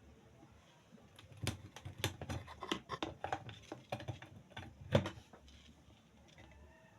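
A quick run of irregular light clicks and taps lasting about four seconds, the loudest one near the end.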